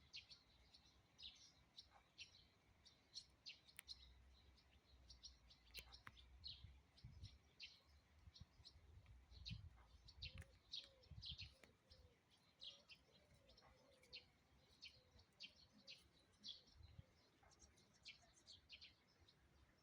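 Faint chirping of small birds: short high chirps repeated many times, with a low rumble from about a fifth to two-thirds of the way through.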